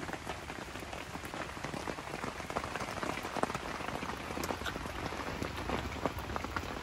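Heavy rain falling steadily, a dense hiss full of small drop taps, heard from inside a fishing bivvy tent with its door open onto the lake.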